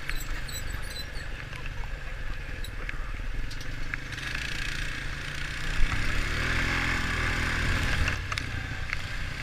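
ATV engine running while riding, a rapid low firing rumble with a noisy hiss over it. About six seconds in the engine note climbs and grows louder, then eases back down a couple of seconds later.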